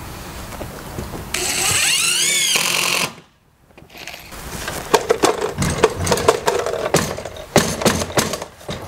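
Cordless drill running for about two seconds as it drives a screw to fasten a mitre saw down, its pitch rising and then dropping before it stops. After a short pause come a series of sharp knocks and clatter from handling the tool and saw.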